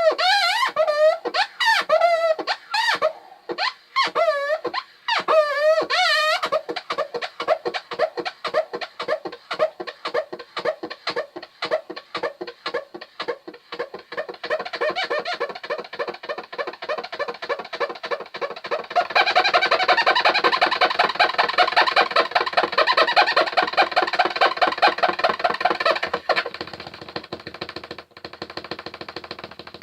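Fingers rubbed and dragged across wood, making squeaks that bend up and down in pitch, then a long rapid juddering squeak-chatter that gets louder and denser about two-thirds of the way through and softens near the end, with a sharp click shortly before the end.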